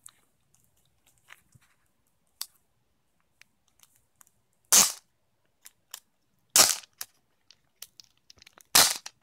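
Clear plastic sleeve crinkling as fingers pick at its edge and peel it open, with faint scattered ticks and three loud, short crackles about two seconds apart, the first about halfway through.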